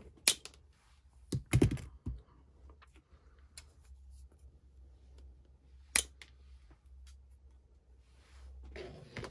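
Scissors snipping the plastic nozzle tips off two-part epoxy containers: a few sharp clicks, several in the first two seconds and one more about six seconds in.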